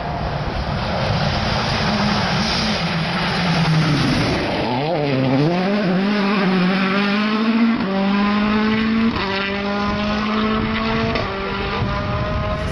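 Rally car on a gravel stage at full throttle, with gravel and tyre noise. The engine note dips and swings around four to five seconds in, then climbs in steps as the car accelerates away, breaking at each of about three gear changes.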